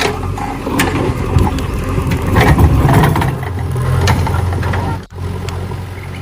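Heavy earthmoving machinery at work: an engine running steadily with a low hum, with a stretch of louder clattering about two to three seconds in. The sound drops out briefly about five seconds in.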